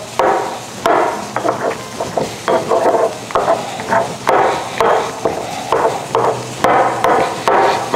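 Stone pestle mashing charred tomatoes in a stone molcajete (Mexican mortar), a rhythmic wet squishing and grinding at about two strokes a second.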